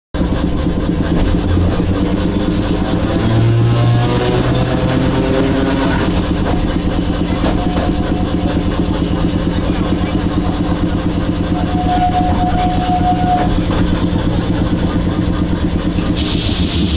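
Iyo Railway Jonan Line streetcar running, heard from inside the car: steady motor and wheel noise, with a rising whine over the first few seconds. A short steady tone sounds about twelve seconds in, and a hiss near the end.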